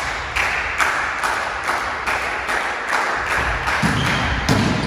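Rhythmic clapping in a sports hall, a steady beat of about two claps a second.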